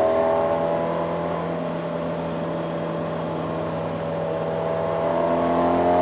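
Fiat 124 Spider Abarth's modified 1.4-litre turbocharged four-cylinder heard from inside the cabin under way: it pulls with a slowly rising pitch, eases off in the middle, then climbs again near the end as the driver gets back on the throttle.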